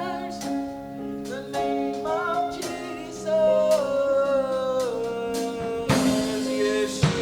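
A song: a voice sings long, wavering notes over accompanying instruments, with a few drum hits, the strongest near the end.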